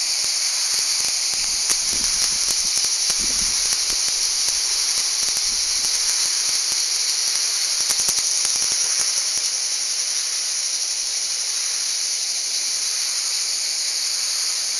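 Chorus of cicadas: a loud, steady, high-pitched buzzing hiss that never lets up.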